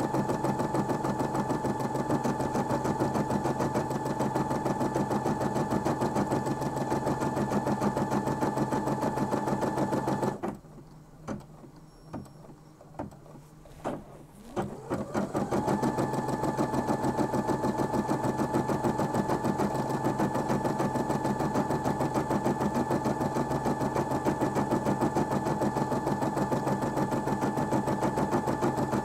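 Brother M280D embroidery machine stitching out a design, running at a steady fast rate: a rapid, even rhythm of needle strokes over a motor hum. About ten seconds in it stops, a few clicks sound during the pause, and some five seconds later it starts again, its whine rising as it comes back up to speed.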